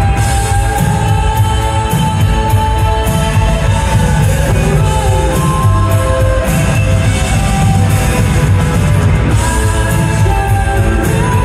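Live indie rock band playing, heard from the audience: electric guitars, keyboards and drums. The music is loud and continuous.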